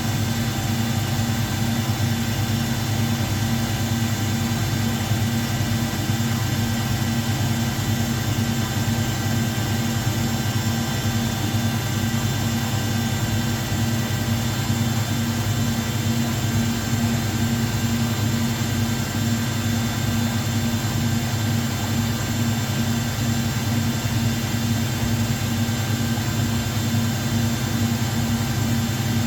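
Washing machine running with a steady, unbroken motor hum and several faint steady whining tones above it.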